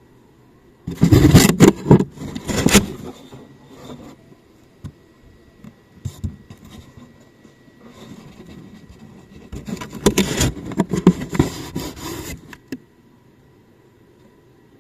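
Cardboard box being opened and handled close to the microphone: scraping and rubbing in two loud spells, about a second in and again around ten seconds in, with lighter rubs between.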